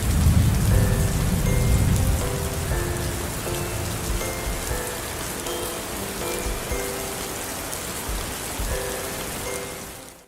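Steady rain, with a low thunder rumble in the first few seconds. It fades out at the end. Faint held musical notes sound softly underneath.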